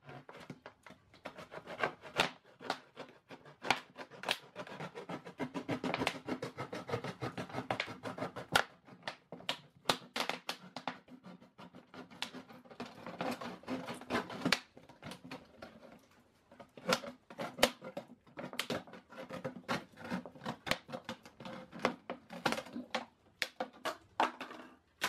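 A knife cutting through a thin plastic water jug, the bottle wall crackling and clicking irregularly as the blade is worked around it.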